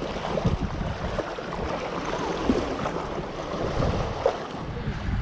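Choppy seawater lapping and sloshing against breakwater rocks, with a few short irregular gurgles and splashes, over low wind rumble on the microphone.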